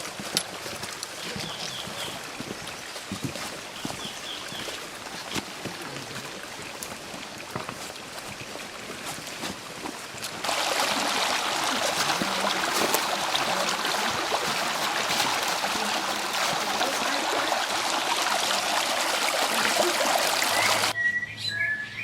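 Stream water running, loud and steady from about halfway through, starting and stopping abruptly. Before it, quieter outdoor ambience with scattered clicks and a few short high bird chirps.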